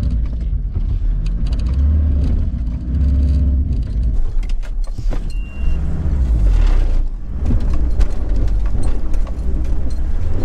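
Panel van driving slowly over rough, cracked dry ground, heard from inside the cab: the engine note rises and falls under a steady low rumble, with frequent rattles and clatters from the cabin and loose items.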